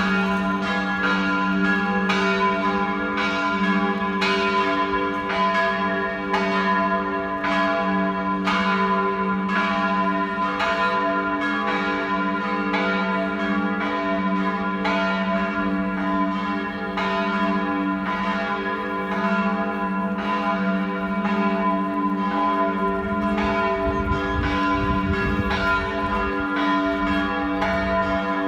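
Church bells pealing: several bells swinging and striking over one another in a steady, unbroken peal, their tones ringing on and blending into a sustained hum beneath the strikes.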